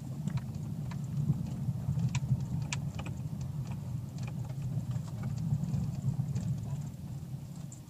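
Cabin sound of a Dacia Duster dCi 4x4 creeping along a rough gravel track: the diesel engine and tyres give a steady low hum, with scattered light clicks and knocks from stones and cabin rattles.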